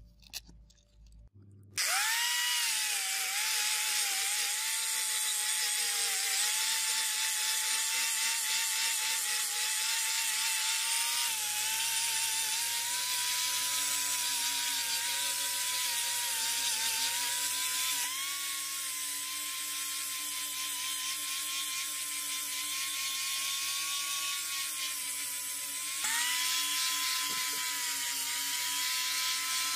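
Electric angle grinder with a hook-and-loop sanding disc, spinning up about two seconds in and then running with a steady high whine as it sands a rusted sword blade. The tone steps slightly three times, where the sandpaper grit changes between cuts.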